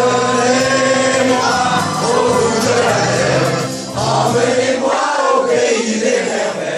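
A crowd of many voices singing a song together over backing music, with short breaks between lines about four and five seconds in.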